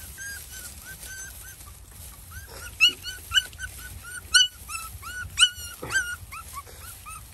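Puppies whimpering in a rapid string of short, high cries, about three a second, with several louder yelps in the middle.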